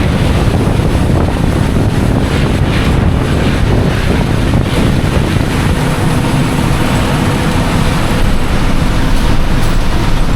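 Loud, steady wind buffeting the microphone over the low rumble of a moving vehicle.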